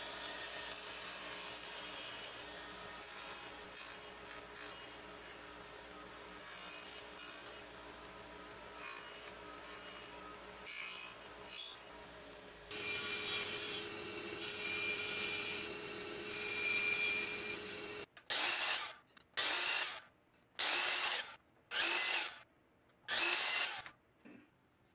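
Radial arm saw running and cutting through wood strips, louder about halfway through. Near the end come about five short separate bursts, each stopping abruptly, as a miter saw makes chop cuts.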